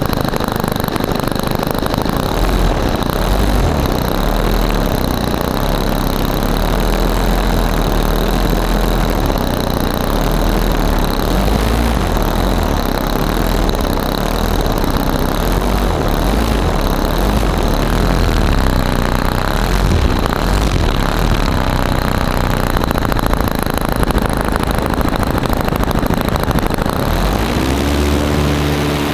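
A nitro glow engine on a 120-size model sport plane runs steadily, heard from just behind its spinning propeller. Near the end the engine note rises a little and settles on a clearer, steady pitch.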